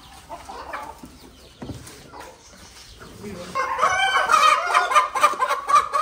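Chickens of native Indian game breeds clucking and squawking, quietly at first and then loud and agitated from a little past halfway, as hens are handled and lifted from a box.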